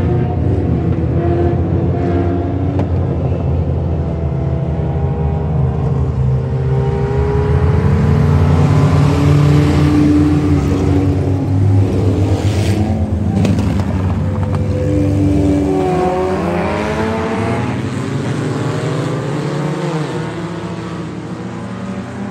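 Several dirt-track stock cars racing around the oval, their engines revving. The noise swells about halfway through as the pack passes close, with engine notes sliding in pitch as cars go by, then eases off toward the end.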